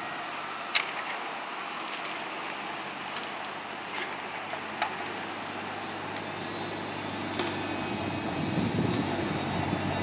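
John Deere mini excavator's diesel engine running steadily as it works, with a few sharp metallic knocks from the bucket and arm. The engine note gets louder near the end as the machine digs.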